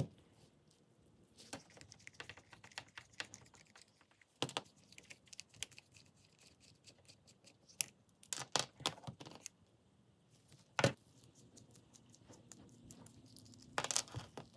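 Small metal spinning-reel parts and a screwdriver clicking, tapping and rattling as the reel is taken apart by hand, in irregular clusters of sharp clicks with a louder single knock about eleven seconds in.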